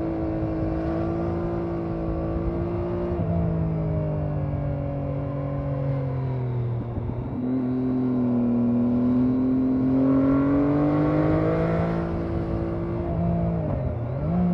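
2012 Triumph Daytona 675R's 675 cc inline-three engine running under way with gear changes. The pitch steps about three seconds in, dips briefly near the middle, then climbs steadily as the bike accelerates, with a quick dip and rise near the end.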